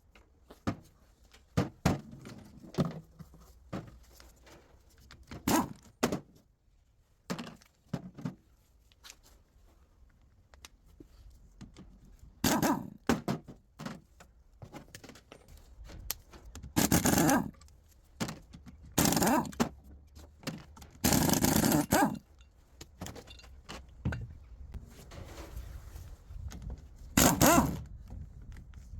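Irregular clunks, knocks and scrapes of tools and metal parts being handled during gearbox work, with several louder harsh bursts of about a second each in the second half.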